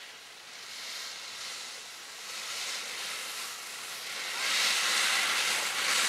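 Skis scraping and hissing over packed snow in a snowplough, getting louder about four and a half seconds in as the skier nears.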